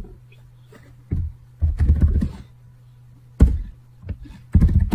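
Typing on a computer keyboard: several short runs of keystrokes with pauses between, over a faint steady low hum.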